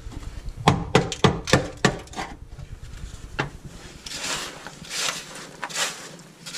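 A metal hand tool strikes and chips at tar-like sound-deadening mat on the car's sheet-metal floor pan. The mat is frozen brittle by dry ice, so it cracks off in pieces. There is a quick run of about eight sharp knocks in the first two seconds, then softer scraping and rustling of loose chips and dry ice pellets near the end.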